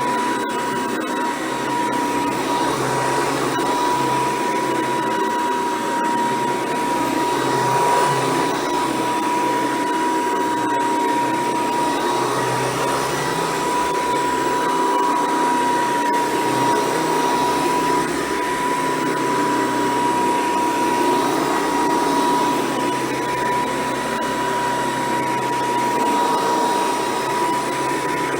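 Hoover Decade 800 upright vacuum cleaner running steadily: rushing air with a high, steady motor whine.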